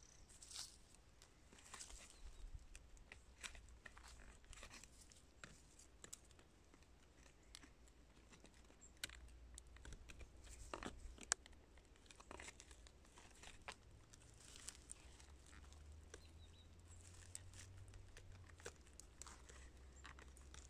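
Faint, scattered scraping and crackling of a small blade digging into soil and dry pine needles at the base of an old rotting stump, with one sharper click near the middle.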